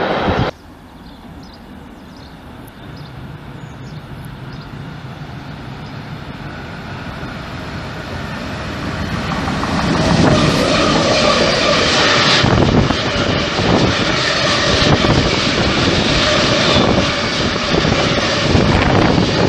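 Electric freight locomotive and a long train of hopper wagons approaching and passing at speed close by: a rumble that grows steadily for about ten seconds, then a loud, steady rumble with the clatter of wagon wheels over the rail joints as the wagons run past.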